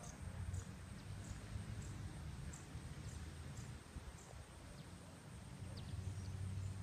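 Outdoor ambience: a steady low rumble with faint, short high chirps about twice a second.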